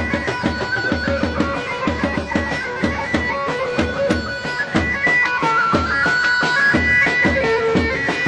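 Turkish folk dance music for the çalkamış: a shrill, reedy wind melody held in long notes over a steady drum beat, in the manner of zurna and davul.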